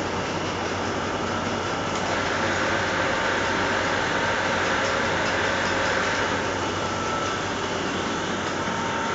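Fibre batting machine running, laying a web of white fibre onto a conveyor: a steady mechanical din with a faint steady whine and low hum, slightly louder from about two seconds in.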